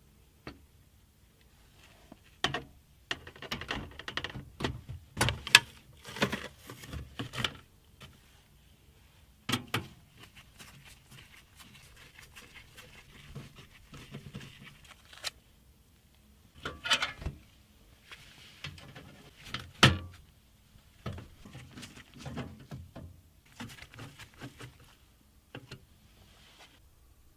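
Irregular clicks, knocks and scrapes as a motherboard is handled and fitted into a PC case, with the loudest knocks about five seconds in and again near twenty seconds.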